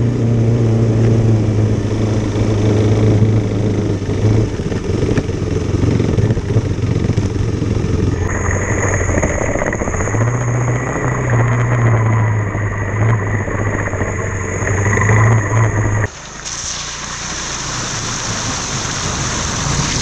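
Motorcycle engine running steadily while riding over a gravel trail. The sound changes abruptly twice. About four seconds before the end the engine drone drops away, leaving a steady hiss.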